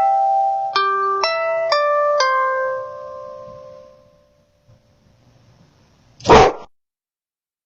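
A short melody of single ringing notes that fades out, followed a couple of seconds later by one loud, short dog bark.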